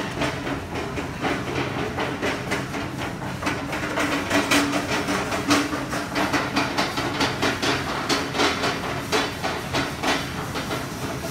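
Supermarket background noise: a steady hum under frequent, irregular clatter and knocks.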